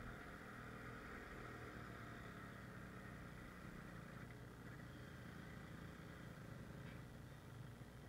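Yamaha RX100's two-stroke single-cylinder engine running faintly at low speed on a dirt trail, with a hiss that fades about four seconds in.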